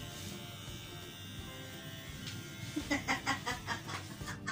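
Electric hair clippers running with a steady buzz. About three seconds in comes a run of short voice sounds.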